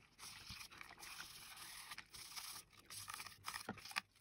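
Toothbrush scrubbing the soapy plastic bottom shell of a computer mouse: faint, scratchy brushing strokes with short pauses between them.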